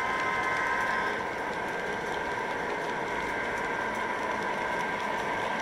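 Long O-gauge model passenger train of Amtrak Amfleet cars and Dash 8 diesel locomotives running steadily on three-rail track: an even rolling noise from the wheels on the rails, with a steady whine.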